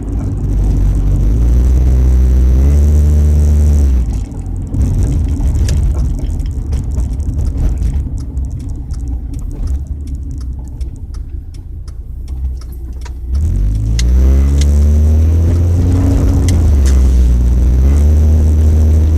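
Car engine running under throttle with a leaking, damaged exhaust. The engine note climbs about two seconds in, settles lower and quieter through the middle, then climbs again and stays loud near the end.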